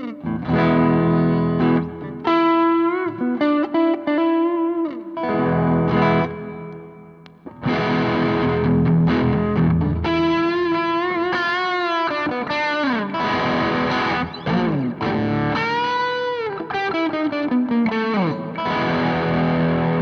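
Electric guitar played through the Mosky DTC 4-in-1 pedal, first with its overdrive and then, partway through, its distortion. It plays chords and single-note phrases with string bends.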